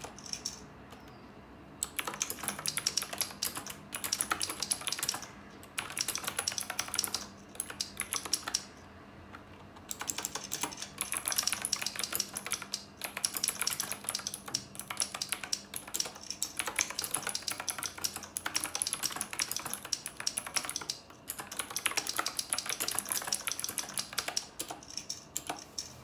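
Typing on a Knewkey Rymek typewriter-style mechanical keyboard with round keycaps: a dense, fast clatter of key clicks in runs of several seconds, starting about two seconds in, with short pauses and a longer break of about two seconds around eight seconds in.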